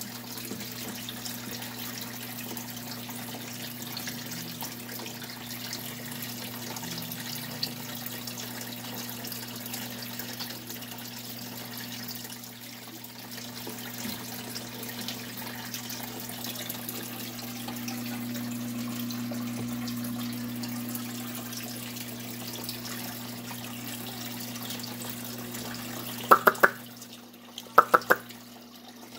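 Water running and splashing steadily in an aquarium, from the tank's filter, over a steady low hum. Near the end there are a few sharp, ringing clinks.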